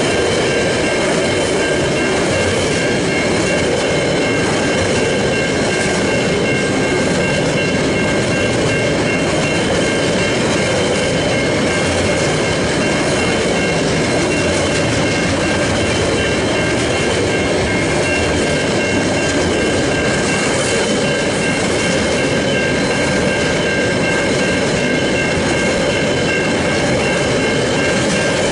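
A train running through a level crossing, a steady loud rumble of wheels on rails, while the crossing's Safetran Type 3 electronic warning bells ring on over it as a set of steady high tones.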